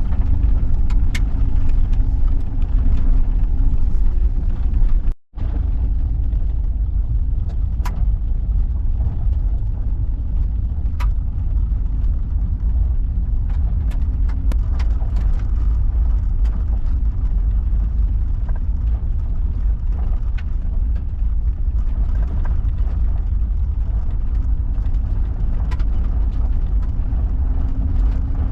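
Van driving on a forest road, heard from inside the cab: a steady low rumble of engine and tyres with scattered sharp ticks and rattles. The sound cuts out for an instant about five seconds in.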